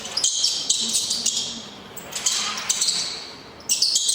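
Recorded mouse squeaks played as the animal's sound: rapid, high-pitched squeaking in three clusters, the last one short, near the end.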